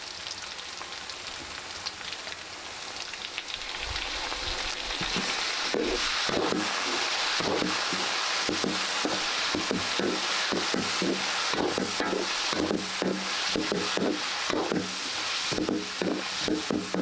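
Food sizzling as it fries in a hot pan, growing louder a few seconds in, with repeated irregular strokes of a utensil stirring it.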